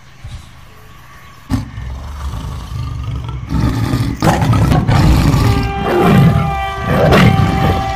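Tiger roaring several times over a low rumble. About halfway through, a train horn joins with a steady chord of several notes and holds.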